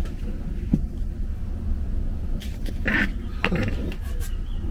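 Steady low rumble with a few short knocks and clinks of kitchenware being handled on a counter.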